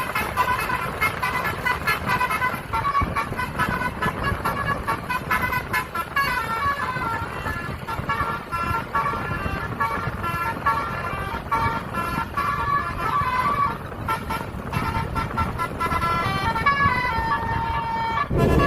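Bus's basuri musical horn playing a tune in quick stepped notes, holding one note near the end, over the steady rumble of the bus's engine.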